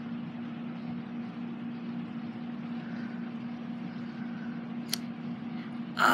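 Steady low mechanical hum with a constant tone and background hiss, and a single sharp click about five seconds in. Right at the end a sudden loud cry of pain starts as the box turtle bites down on a finger.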